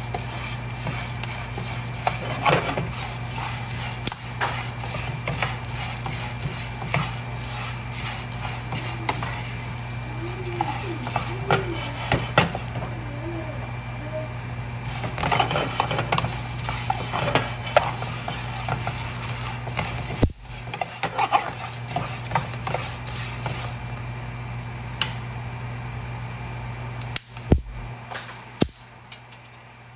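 Wooden spatula stirring pumpkin seeds as they toast in a frying pan: the dry seeds rattle and slide while the spatula scrapes and clicks against the pan, in irregular strokes over a steady low hum.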